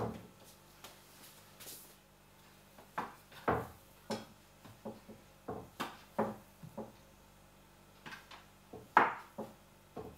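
Irregular knocks and taps on a wooden board as a metal bench scraper cuts dough into portions and the pieces are set on a kitchen scale. The loudest knock comes about nine seconds in.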